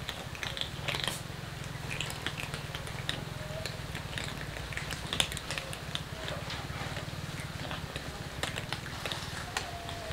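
A crowd of cats eating dry kibble: many small, irregular crunches and clicks overlapping, over a steady low hum.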